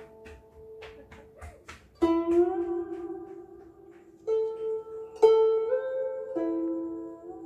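Solo đàn tranh (Vietnamese zither) played back over a hi-fi system: light, quick high plucks, then four strong plucked notes about two seconds in and later, several bent upward in pitch just after they are struck.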